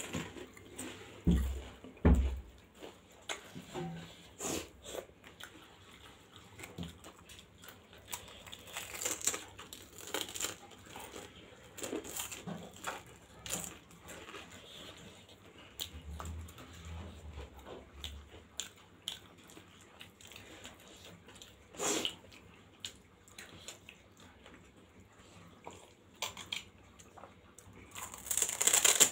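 Close-miked chewing and mouth sounds of someone eating pani puri, with small scattered clicks and taps. There are two low thumps about one and two seconds in as a metal spoon is set down on the table, and near the end a louder slurp as the pani water is drunk from a bowl.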